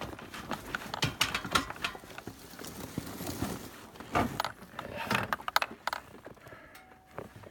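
Scattered clicks, knocks and rattles of hands handling an ATV's controls and ignition key, with the engine not running.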